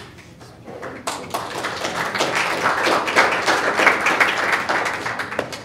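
Audience applauding: many hands clapping, starting about a second in, swelling, then stopping shortly before the end.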